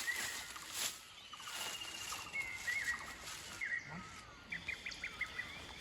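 Birds chirping and calling over a steady high insect drone, with a run of quick short chirps in the second half.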